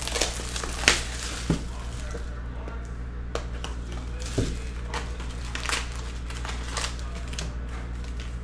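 Plastic shrink-wrap crinkling and a cardboard trading-card hobby box being opened, then its foil packs handled: an irregular string of crackles and taps, with a sharp snap about a second in.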